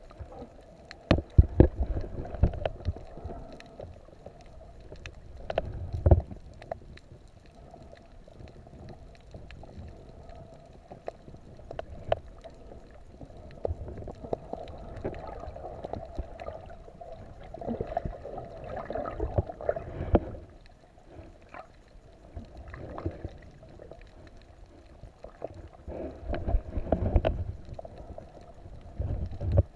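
Muffled underwater noise heard through a handheld camera's waterproof housing: low rumbling water movement with louder surges about a second in, around six seconds and near the end, scattered sharp clicks and knocks, and a faint steady hum.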